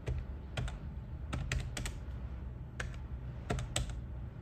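Calculator keys being pressed one at a time: about eight short, sharp clicks at an uneven pace as a subtraction is keyed in.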